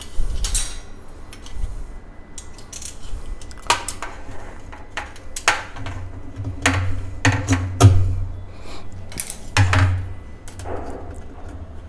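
Scattered sharp metallic clinks and knocks from handling a steel telescopic drawer channel and hand tools while fixing it to a kitchen cabinet's side panel.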